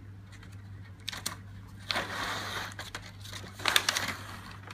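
Sterile Mirena package being peeled open: its paper lid pulled off the clear plastic tray that holds the inserter, crinkling and crackling, with a longer rustle about two seconds in and a sharper crackle near four seconds.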